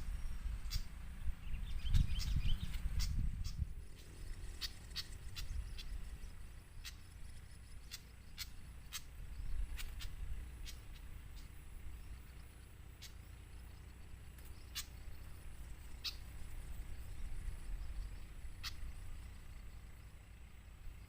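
Small birds giving short, sharp chip notes, scattered irregularly. A low rumble, heaviest in the first few seconds.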